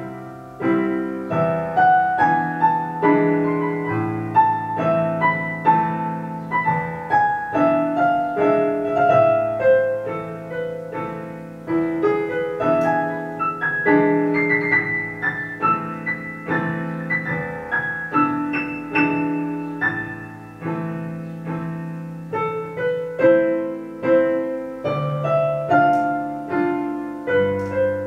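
Solo piano playing a classical piece: a melody in the right hand over bass notes and chords, with note attacks fading away between phrases.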